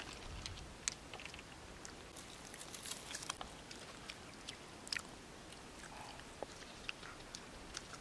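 Faint chewing and mouth-smacking from baby monkeys eating fruit, with scattered small sharp clicks.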